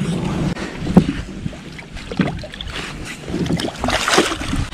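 Water lapping at a small boat's hull with wind on the microphone, a sharp knock about a second in, then a hooked fish thrashing and splashing at the surface beside the boat near the end.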